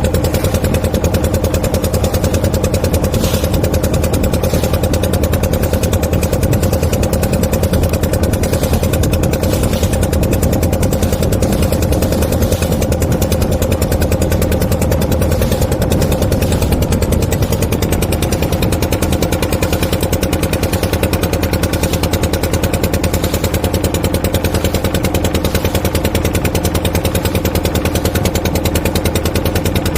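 Hand-cranked engine of a wooden fishing boat running steadily, with a fast, even chugging beat.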